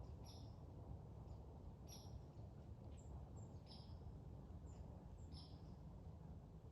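Faint bird calls: a short, high chirp repeated four times at even intervals of just under two seconds, with fainter, higher short notes between, over a low steady background rumble.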